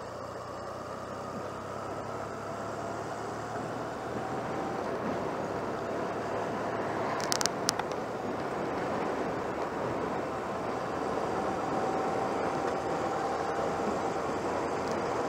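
1996 Honda CMX250C Rebel's parallel-twin engine running as the bike picks up speed, with wind rush on the microphone growing steadily louder. A short cluster of sharp clicks about seven seconds in.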